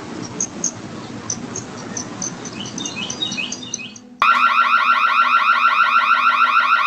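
Faint outdoor background hiss with small bird chirps. About four seconds in, a loud electronic security-camera siren starts suddenly and keeps going as a rapid warble that sweeps upward several times a second.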